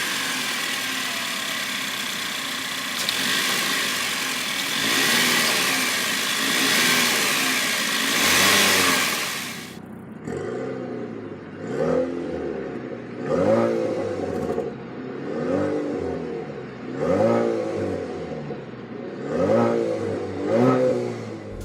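2019 Chevrolet Camaro's 2.0-litre turbocharged four-cylinder engine running, revved a few times under a steady hiss. From about ten seconds in it is blipped repeatedly, each rev rising and falling, about seven times.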